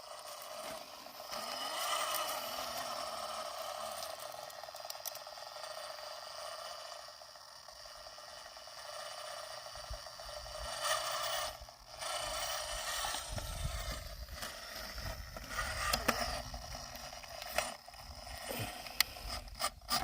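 Axial SCX24 micro RC crawler's small electric motor and gears whirring, rising and falling as it crawls, with its tyres and chassis scraping and clicking over rock. A low rumble joins from about two thirds of the way in.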